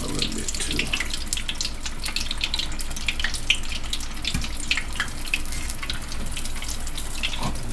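Chicken egg rolls deep-frying in hot peanut oil: a steady sizzle with many small crackles and pops from the bubbling oil.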